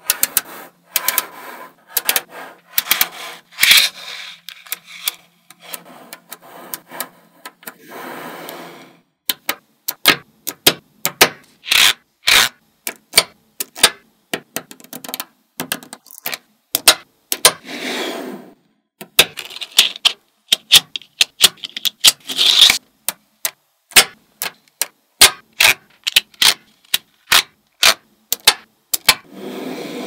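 Small magnetic balls clicking and snapping together as rows of them are set down and joined into a block: many sharp, irregular clicks, with a few short stretches of rattling and rubbing as clusters slide against one another.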